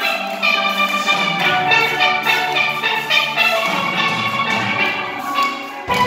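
Steel band playing a lively tune: many steelpans of different ranges struck together in a quick, dense rhythm, the sound dipping briefly just before the end.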